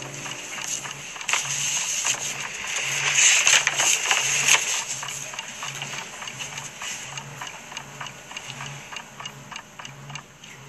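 Paper and card rustling and crackling as a bundle of old letters and cards tied with ribbon is untied and handled, loudest about three to four and a half seconds in, then softer. A soft low pulse repeats about every three-quarters of a second underneath.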